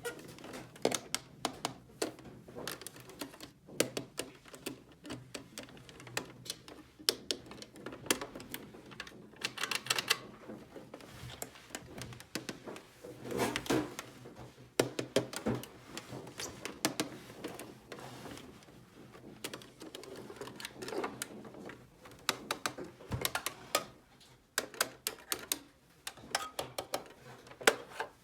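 Irregular clicks and taps of small plastic toy pieces being handled and snapped together, with some brief rustling.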